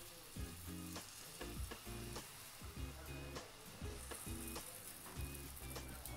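Moong dosa batter sizzling in hot oil as it is spread thin across the pan with the back of a small steel bowl, under background music.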